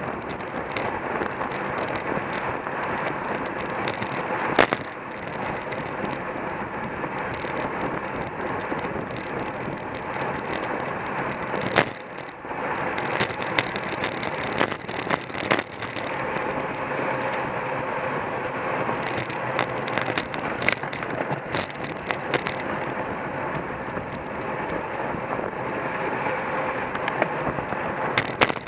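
Bicycle ridden at race speed with the camera mounted on it: a steady rush of wind and tyre noise, broken by sharp knocks and rattles from bumps, the loudest about five and twelve seconds in.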